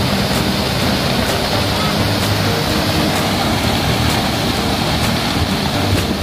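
Heavy water falling steadily onto rocks from a hydroplant outflow that pours down like a tall waterfall, a constant rushing noise.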